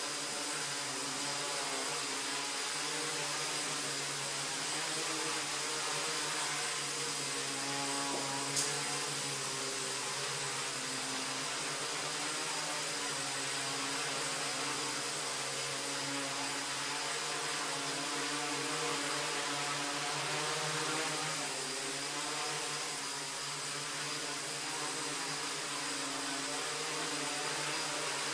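Tricopter's three electric motors and propellers running steadily in a hover, a buzzing whir whose pitches waver slightly as the motor speeds are adjusted. A single sharp click about eight and a half seconds in.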